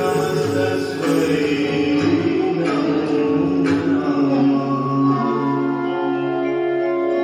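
Devotional hymn to the goddess Durga, sung over music, with two sharp strikes around the middle; the second half settles into long held notes.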